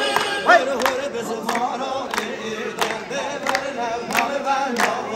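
Background music: a song with voices singing over a regular drum beat of about one and a half beats a second.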